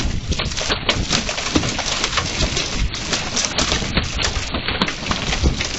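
Quarter-sized hailstones and rain pelting a wooden deck and yard: a dense, irregular patter of sharp clicks and knocks over a steady hiss of rain.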